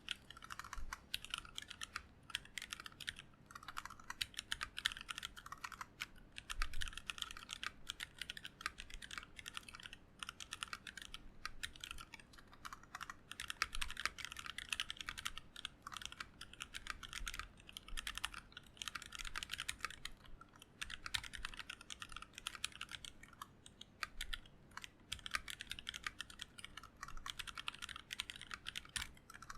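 Continuous fast typing on a mechanical keyboard with 78 g factory-lubed Seal linear switches, a brass plate and ABS blank keycaps: a dense run of clacky keystrokes in bursts with short pauses.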